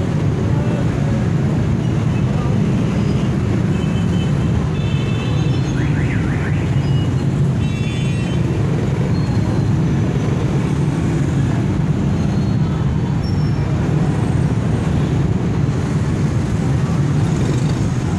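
Dense street traffic of auto-rickshaws and motorcycles running steadily at a level crossing, a constant low engine rumble. Short horn toots cut through about four and eight seconds in.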